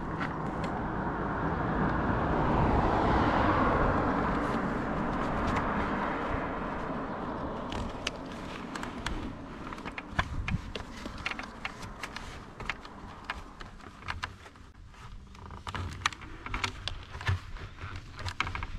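A car passes: its road noise swells to a peak about three seconds in and fades over several seconds, over a steady low rumble. Scattered sharp clicks follow in the second half.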